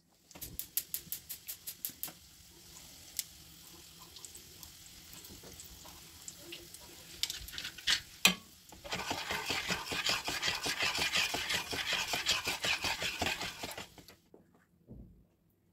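Quick clicking strokes at the start, then a sharp knock about eight seconds in, then several seconds of brisk stirring in a stainless steel pot of broth and cream, the utensil scraping rapidly against the metal until it stops abruptly near the end.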